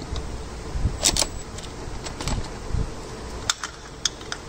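Socket wrench on a long extension working an 8mm bolt on an engine's intake: irregular metallic clicks and clinks of the tool, with a few dull knocks.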